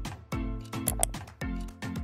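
Background music with a steady beat and bass notes that slide downward.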